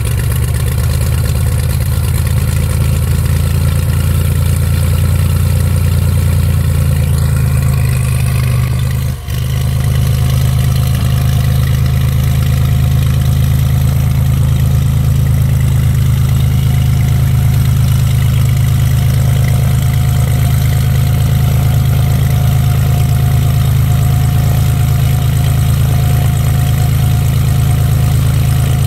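Questair Venture's piston engine and propeller running at idle just after start-up, a steady low drone as the aircraft sits and then taxis. The loudness dips briefly about nine seconds in.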